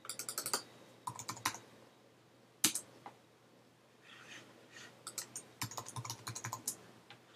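Computer keyboard typing in short runs of quick keystrokes, with one louder single click a little under three seconds in.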